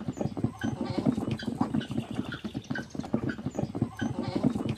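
A flock of hungry chickens clucking and scrabbling at feed: a dense run of short clucks and higher peeps.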